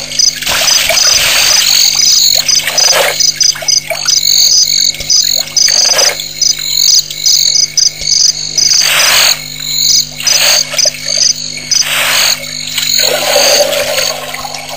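A frog chorus at a waterhole at night: a dense, fast pulsing of high-pitched calls, with a few brief louder noisy bursts every couple of seconds.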